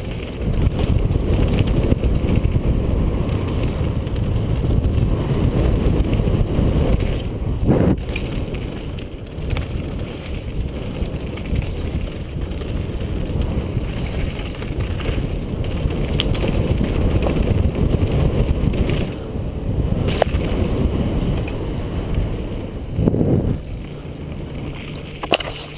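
Wind buffeting a helmet-mounted GoPro's microphone, mixed with tyres rolling over dirt and gravel and the bike rattling during a fast downhill mountain bike descent. A few sharp knocks come from hits on bumps, and the sound eases near the end as the rider slows.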